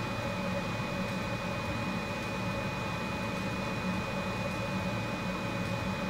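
Steady background hiss with a low hum and a faint, steady high-pitched whine, without distinct events.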